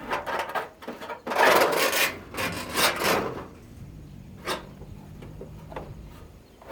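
Metal parts of an air purifier scraping and rubbing as it is taken apart: a few loud scraping strokes in the first half, then a couple of light clicks.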